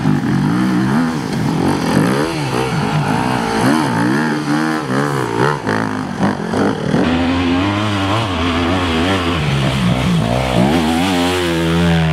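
Enduro motorcycle engine revving up and down rapidly as the throttle is opened and closed, settling into a steadier note near the end.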